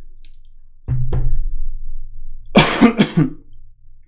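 A man coughing: two short coughs about a second in, then three louder coughs in quick succession a little past halfway.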